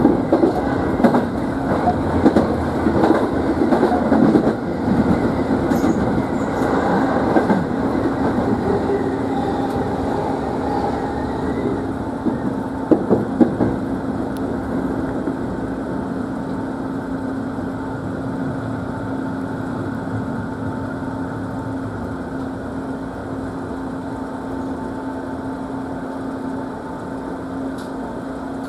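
Electric commuter train running on the Sobu Main Line, heard from inside the leading car. Its wheels clatter over rail joints and points during the first several seconds and again briefly a little before halfway. After that it settles into a steady hum with a constant tone that slowly gets quieter.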